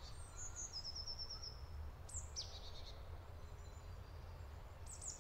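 Small songbirds singing faintly in woodland: a quick trill of repeated high notes, then a couple of short falling notes, and another call near the end, over a low steady rumble.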